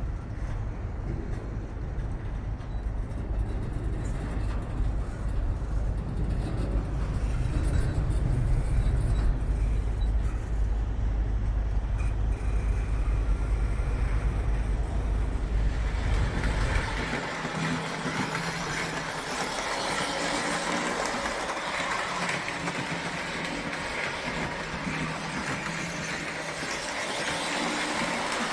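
O gauge toy trains running on the layout: a steady low motor hum and rumble that drops away about seventeen seconds in, leaving a higher, hissing running noise.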